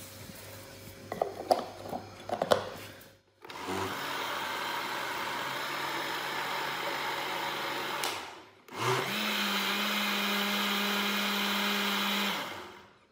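A few clicks and knocks, then a countertop blender motor running twice: a pulse of about four and a half seconds stops briefly, and a second run at a higher pitch lasts about four seconds before winding down. The blender is puréeing a wet chili, garlic, ginger and apple paste.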